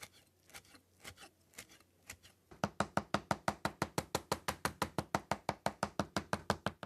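Kitchen knife mincing Alaska pollock flesh on a cutting board. A few scattered taps come first, then from about two and a half seconds in, rapid, even chopping of about six strokes a second.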